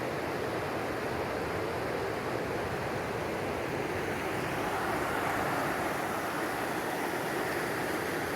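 Steady rushing of the Nolichucky River's water flowing past the bank.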